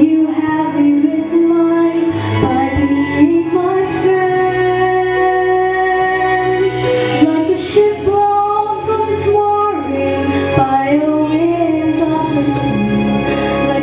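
Female voice singing long held, sliding notes of a ballad over a steady low instrumental accompaniment.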